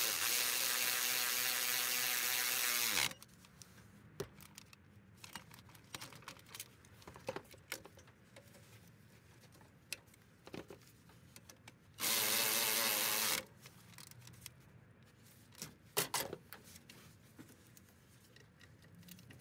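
Cordless ratchet driving in the alternator's mounting bolts. Its motor whirs steadily for about three seconds and winds down as it stops, then makes a second run of about a second and a half some twelve seconds in. Light clicks and knocks of tools and parts come in between.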